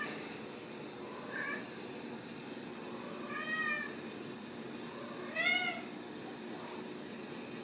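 Ragdoll kitten meowing three times, a short meow, then a longer one, then the loudest about two-thirds of the way in. A steady low hum runs underneath.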